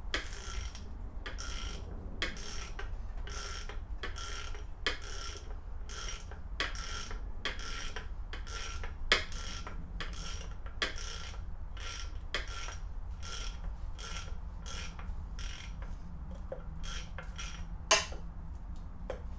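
Ratchet wrench clicking in short, regular runs about twice a second as the rocker cover bolts are undone, with a sharper knock about nine seconds in and another near the end.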